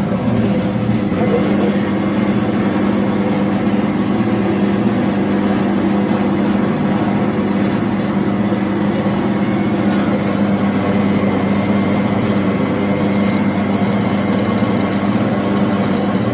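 Raisin grinder machine running, a steady unchanging machine hum with a strong low tone.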